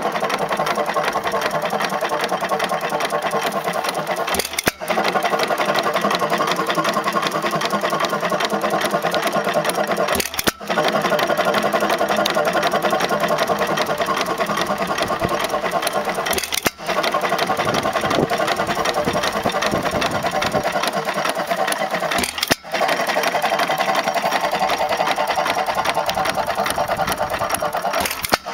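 2 HP Sparter Economy hit-and-miss gas engine running with a steady, fast mechanical clatter. The sound drops out sharply for a moment about every six seconds.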